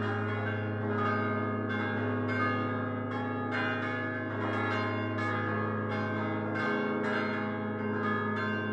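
Five fixed-hung church bells cast by Prospero Barigozzi in 1928, rung together in a solemn peal by swinging their clappers by hand. Strikes come about twice a second, each ringing on with many tones over a continuous deep note.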